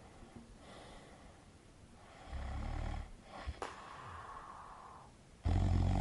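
A person snoring: two loud, low, rasping snores about three seconds apart, with quieter breathing between them.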